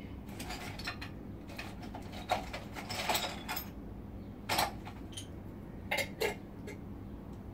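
Scattered clinks, knocks and light rustling of household items being moved about by hand while someone rummages through a shelf, with a small flurry of handling about three seconds in.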